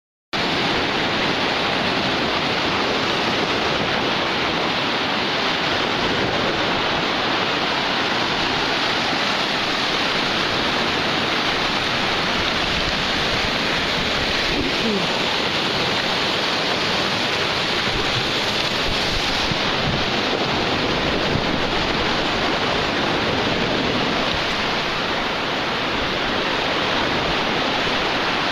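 Sea surf breaking on a sandy beach: a steady, unbroken rush of waves that starts suddenly just after the opening.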